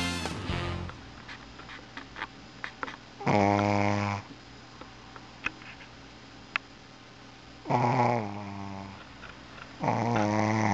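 A sleeping pet snoring loudly: three long snores, each about a second long, a few seconds apart.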